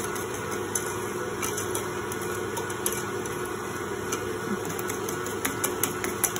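Electric mixer running steadily, beating egg whites to stiff meringue, with light irregular clicks of a wire whisk against a glass bowl as a custard base is whisked by hand.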